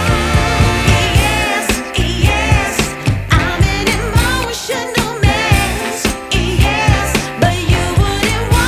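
Background music: a song with a steady beat and a sung melody with vibrato over bass.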